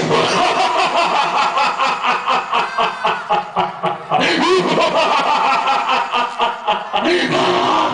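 A man's voice through a stage microphone and PA doing a long mimicked laugh, a rapid staccato cackle of about six pulses a second, with a steadier held stretch in the middle before the pulsing resumes.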